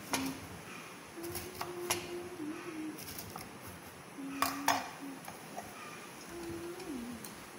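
Kitchen knife chopping banana blossom on a wooden chopping board: sharp knocks of the blade on the board, the loudest a pair about four and a half seconds in. Behind them a low held tone that steps up and down in pitch.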